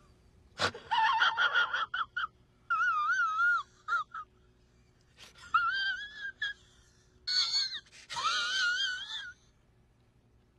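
A man's high, wavering whimpering wails, like crying, in about six short bursts with pauses between them.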